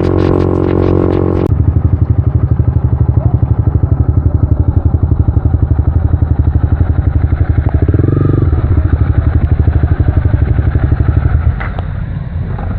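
Motorcycle engine running with a deep, rapid, even exhaust pulse, swelling briefly about two-thirds of the way through and dropping away near the end. Music plays for the first second and a half before the engine takes over.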